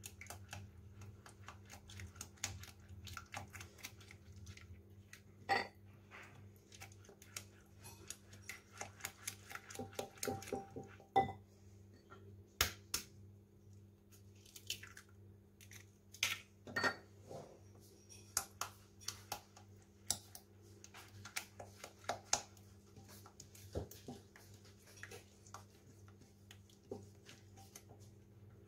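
Silicone spatula stirring and scraping thick chocolate batter in a glass bowl, with scattered taps and clinks against the glass, as eggs are cracked in one at a time.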